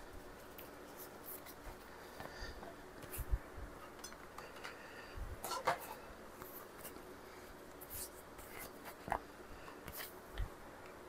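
Faint, scattered light taps, clicks and rubbing as lasagna noodles are handled and laid into a baking pan.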